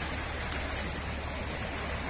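Steady rushing of a fast, swollen floodwater current.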